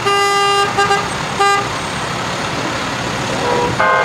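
Fire truck horn blowing one long blast and then two short toots, over the steady noise of the passing parade trucks. Near the end, a horn at a somewhat different pitch toots twice briefly.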